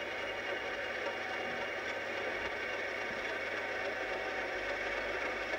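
Class 50 diesel locomotive's English Electric 16-cylinder engine running steadily as the locomotive moves past, with some rattle.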